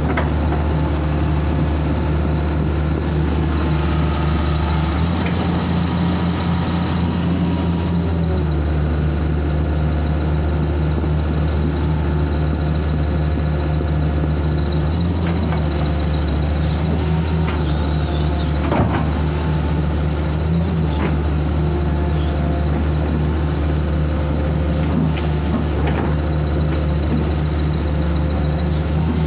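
Hitachi excavator's diesel engine running steadily under load, heard from inside its cab. The engine note shifts about eight seconds in, and there is a single sharp knock about two-thirds of the way through.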